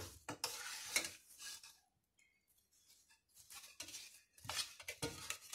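Spoon stirring and scraping melting dark chocolate in a small stainless steel saucepan set in a pot of hot water, with faint metal clinks against the pan. The stirring pauses for a second or so midway, then resumes.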